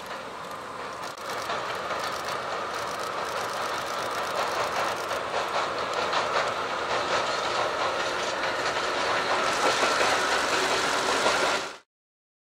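Two DE10 diesel locomotives hauling a train across a steel girder bridge: the clickety-clack of wheels over the rail joints and bridge, growing steadily louder as the train approaches. The sound cuts off abruptly near the end.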